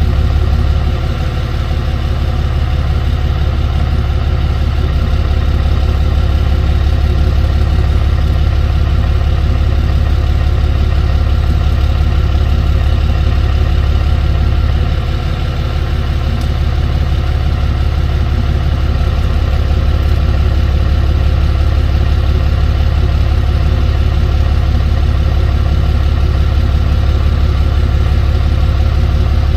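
Tow truck's engine idling with a steady low drone.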